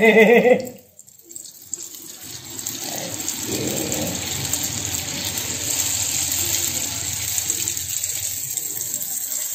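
Strips of cakwe (youtiao) dough deep-frying in a wok of hot oil, sizzling with fine steady crackle. The sizzle builds about two seconds in, just after a fresh strip is laid in the oil, then holds steady.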